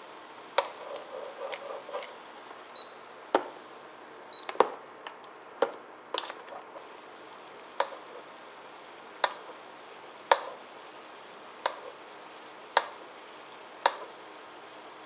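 Acqua pazza of sawara fillets and clams simmering in a frying pan: a soft steady hiss with sharp single pops and spatters about once a second.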